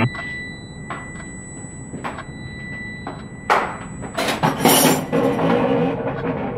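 Scattered sharp knocks and clinks, spaced about a second apart, with a louder, longer clatter about four seconds in.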